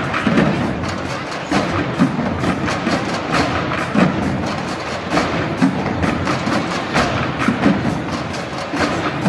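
Trash can band drumming on upturned plastic and metal trash cans with mallets and sticks: a busy, continuous rhythm of many hollow hits.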